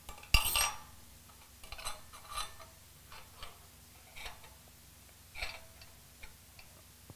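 Metal push rods clinking and tapping as they are handled and slid into the push-rod tubes of an engine cylinder head. A sharp knock comes about a third of a second in, then a scattered string of lighter metallic clicks.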